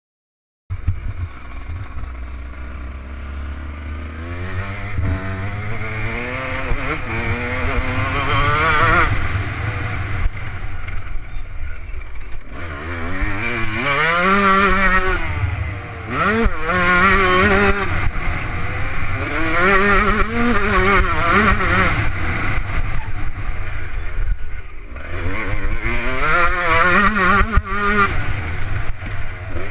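Kawasaki KX125 two-stroke single-cylinder motocross engine under hard riding, cutting in abruptly about a second in, then revving up and dropping back again and again as the rider accelerates and lets off. A heavy low rumble of wind on the helmet-mounted microphone runs under it.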